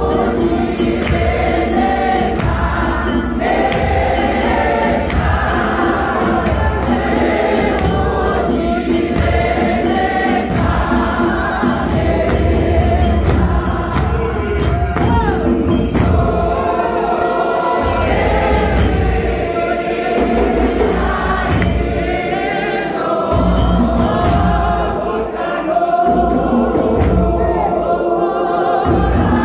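A large congregation singing a hymn together, many voices in harmony.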